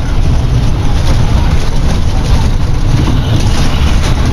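Intercity bus's diesel engine running, heard from inside the cabin with road noise as a loud, steady low rumble.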